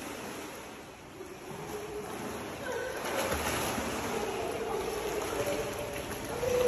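Water splashing and churning as a child swims along the pool wall, kicking; the splashing builds and is louder from about three seconds in.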